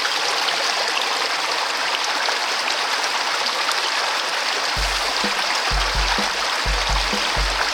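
Mountain stream rushing steadily. About five seconds in, background music with a regular bass beat comes in over the water.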